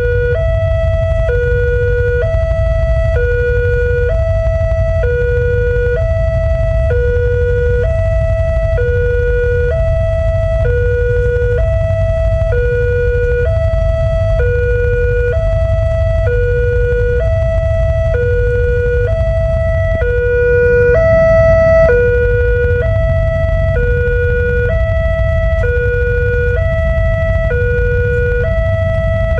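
Railway level-crossing warning alarm sounding: an electronic two-tone signal alternating between a lower and a higher note about once a second, over a steady low rumble. It warns that a train is approaching the closed crossing.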